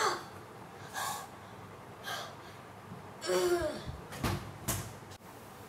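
Short gasps and a voiced grunt from a person hit in the chest by a thrown basketball, then two dull thuds half a second apart near the end.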